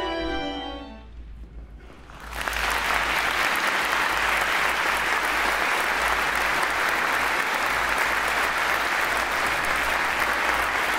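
The last notes of a small string ensemble fade out, and about two seconds in an audience breaks into steady, sustained applause.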